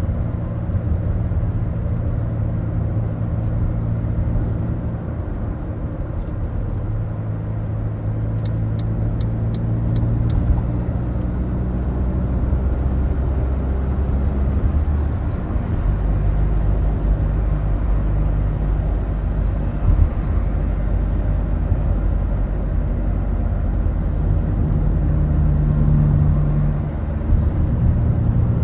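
Ford Focus diesel engine and road noise heard from inside the cabin while driving, a steady low drone whose pitch shifts several times as engine speed changes. About eight seconds in, a short run of six evenly spaced clicks sounds over it.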